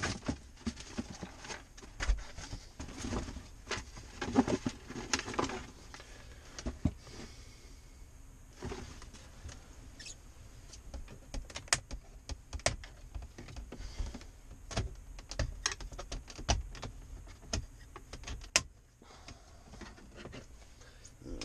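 Irregular small clicks, taps and knocks of hands working at a pickup truck's plastic dashboard around the stereo, some sharp single clicks standing out.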